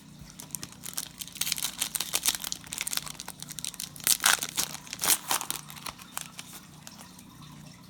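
Trading card pack wrapper being torn open and crinkled by hand: a busy run of sharp crackles and tearing, loudest about four to five seconds in.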